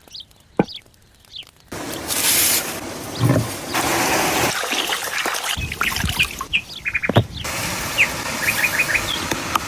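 Small birds chirping in short calls, including a quick run of four or five near the end, over a steady rushing hiss that starts about two seconds in. A couple of sharp knocks sound, one near the start and one about seven seconds in.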